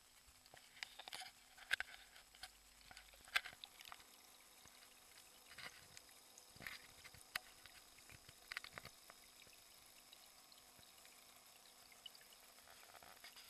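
Faint water sounds heard from inside a nano reef aquarium: scattered clicks and crackles, densest in the first nine seconds, over a faint steady hum.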